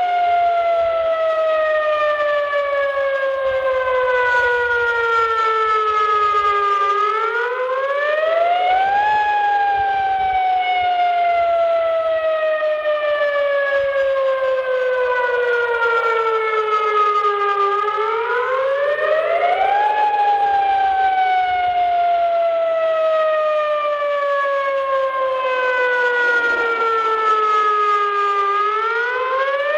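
Tornado warning siren sounding. Its pitch climbs quickly over about two seconds, then slides slowly down over about eight, and the cycle repeats three times.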